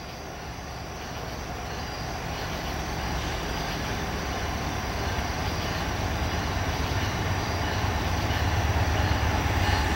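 Approaching diesel freight train led by two GE C44-9W locomotives: a steady low rumble of engines and wheels that grows gradually louder as the train nears.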